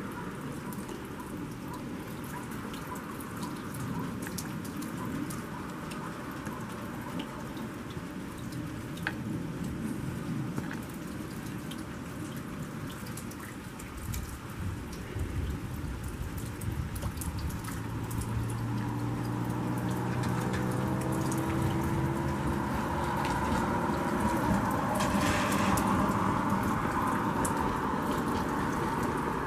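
Steady light rain, with drops pattering and dripping onto wet ground and puddles. About two-thirds of the way through, a low mechanical hum rises over the rain and grows louder toward the end.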